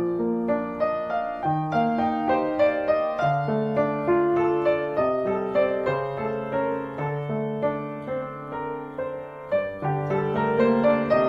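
Background piano music: a gentle melody of single notes over held bass notes, dipping briefly in loudness about nine seconds in.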